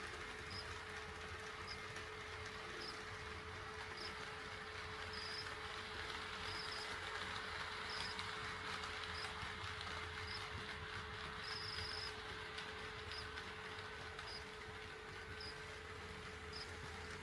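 HO scale model train running on the layout's track: a steady motor hum and whir, with light ticks recurring irregularly.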